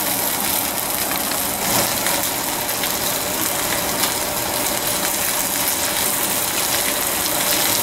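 Chicken sizzling in a hot enamelled cast-iron grill pan: a steady frying sizzle with a few faint crackles while barbecue sauce is brushed on.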